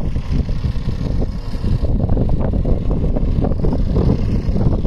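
Wind buffeting the microphone: a loud, uneven low rumble that comes in gusts.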